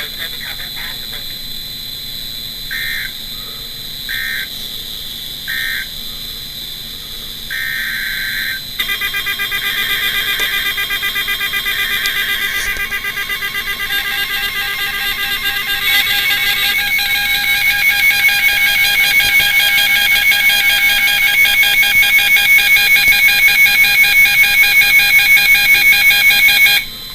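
NOAA Weather Radio Emergency Alert System signal: three short screeching digital header bursts and a longer fourth one, then a loud electronic alarm tone pulsing rapidly. The alarm changes pitch about halfway through and cuts off suddenly near the end.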